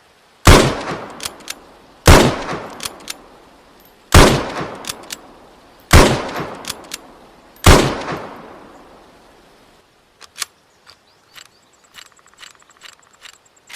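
Five shots from a bolt-action Mosin-Nagant rifle, about two seconds apart, each dying away with a few light clicks after it. After the shooting, a series of faint clicks and a brief rattle near the end.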